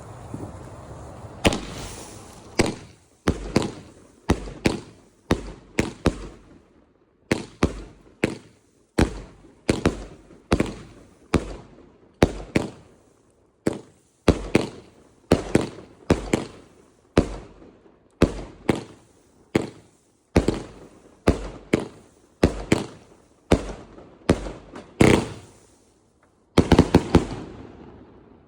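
A 25-shot salute firework cake firing: after a short hiss, a long string of sharp, loud bangs about one a second, each trailing off, ending in a quick volley of several bangs close together near the end.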